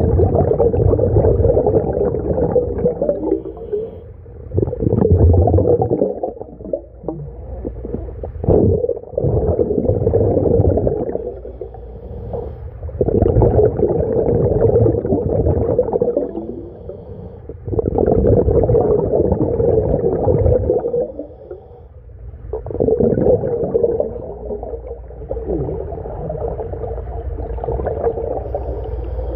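Scuba diver breathing through a regulator, recorded underwater: each exhalation sends out a surge of bubbling and gurgling, a few seconds long, with quieter gaps between breaths.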